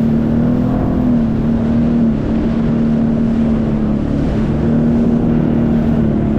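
Sea-Doo jet ski engine running steadily under way, its hum lifting slightly in pitch about half a second in and settling back around two seconds, over a constant rush of noise.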